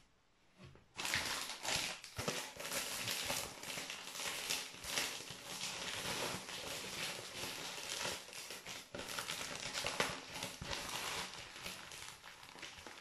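Plastic wrapping of a trading-card multipack crinkling and crackling as it is handled and torn open, starting about a second in and going on as a dense run of sharp crackles.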